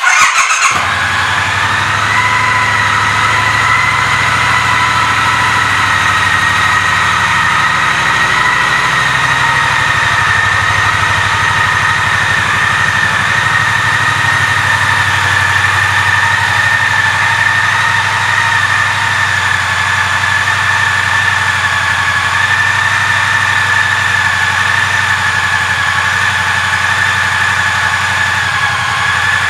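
Triumph Bonneville T120's 1200 cc parallel-twin engine starts right at the beginning and settles into a steady idle. A steady high whine sits over the low idle throughout.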